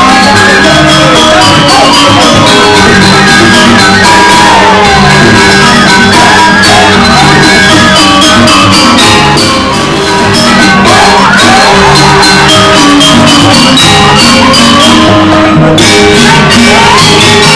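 Loud Balinese joged dance music: a fast, steady pattern of struck percussion under held melodic tones, with voices shouting and singing over it.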